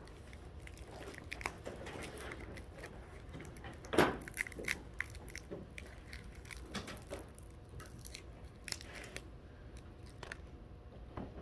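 Scattered small clicks, taps and rustles of objects being handled, with one louder knock about four seconds in.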